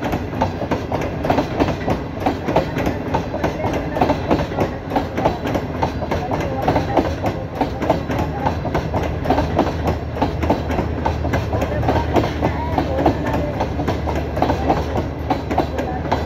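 Passenger coaches of Pakistan Railways' Green Line Express rolling past, their wheels clattering steadily over the rail joints.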